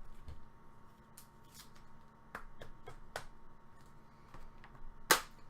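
Trading cards being handled and flipped through: scattered light clicks and slides of card stock, with a sharper click near the end.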